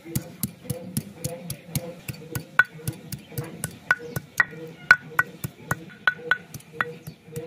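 Stone roller knocking down onto a flat, grooved grinding stone as it crushes ginger, a steady run of sharp knocks at about three or four a second.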